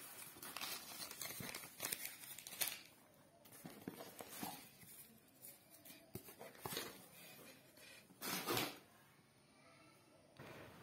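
Faint rustling and crinkling of a cardboard box and crumpled paper packing as a tin is handled and lifted out, with scattered small clicks and one louder rustle about eight seconds in.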